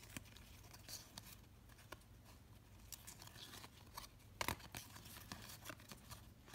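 Faint rustling and light snapping of 1993–94 Upper Deck basketball trading cards being flipped and slid against each other in the hands, with a few sharper snaps, the loudest about four and a half seconds in.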